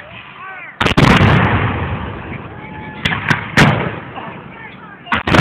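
Black-powder guns firing blanks in a ragged series of shots. A loud double report comes about a second in with a long rolling echo, then three shots about three seconds in, and two more just before the end.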